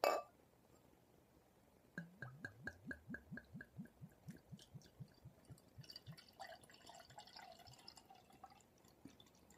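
Ale glugging out of a glass bottle into a tilted pint glass: a quiet moment, then about two seconds in a steady run of glugs, about four a second, slowing as the pour goes on. Near the end the glugging gives way to a fizzing hiss as the beer fills the glass and forms a head.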